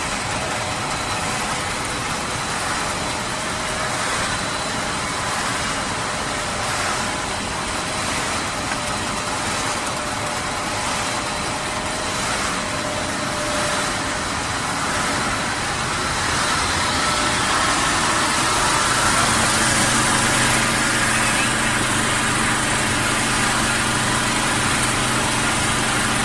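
Snack pellet production line machinery running: a steady mechanical drone with motor whine. Past the middle it gets a little louder and a low hum comes in.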